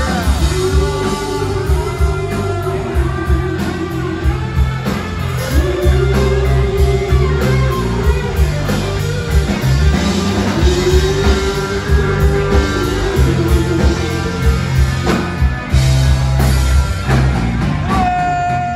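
Live rock band playing: electric guitars, bass and drum kit with a lead singer, in long held phrases over a steady beat.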